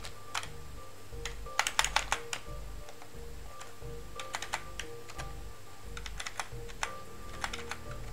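Computer keyboard keys clicking in irregular bursts of typing, with several quick keystrokes together then pauses, over quiet background music of held notes.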